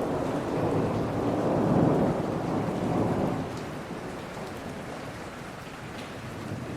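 Steady rain falling in a forest, with a low rumble of thunder that swells to a peak about two seconds in and fades away after the middle.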